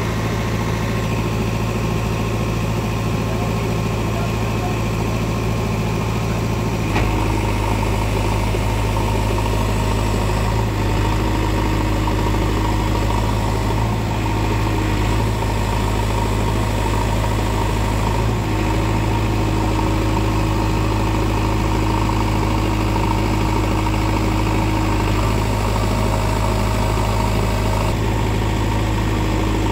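JCB 3DX backhoe loader's diesel engine running steadily while the backhoe arm works. The engine note steps up about seven seconds in.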